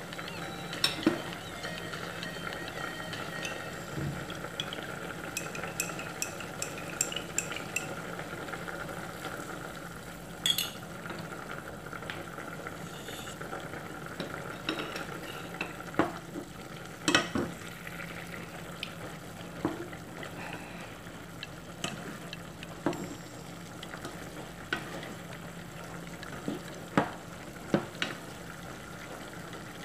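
Chicken and vegetables sizzling in a pot while a plastic spoon stirs them, the spoon knocking sharply against the pot about a dozen times.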